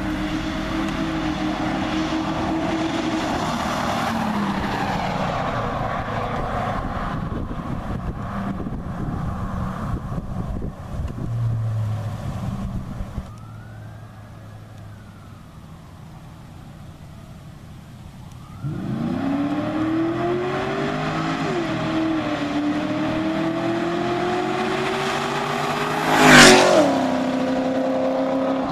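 Ford Crown Victoria's V8 exhaust: the engine runs at moderate revs with its pitch easing down, goes quiet for a few seconds, then is floored about two-thirds in. Its pitch climbs, dips at an upshift, climbs again, and a loud rush near the end marks the car passing close, after which the pitch drops.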